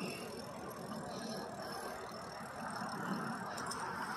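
Steady rush of wind and wheel noise on asphalt from a ride along a street, even in level throughout.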